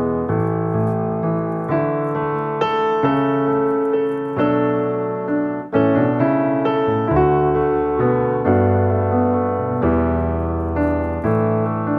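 Background piano music, a steady run of held chords and melody notes.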